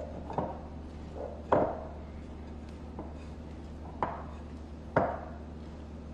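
Sticky bread dough being stretched and dropped back into a glass mixing bowl by hand, making a handful of soft wet slaps and knocks, the loudest about a second and a half in, with others about four and five seconds in.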